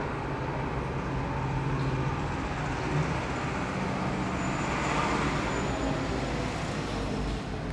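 Motor vehicle noise: a steady low rumble that swells to a peak about five seconds in and then eases off.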